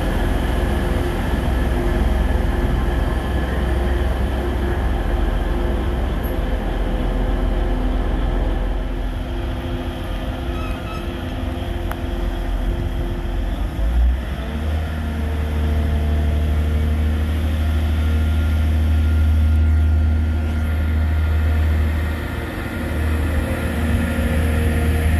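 TransPennine Express Class 185 diesel multiple units running along the platform, their diesel engines giving a steady drone and rumble. About fourteen seconds in, a deep, steady engine hum sets in and grows louder as a unit moves close alongside.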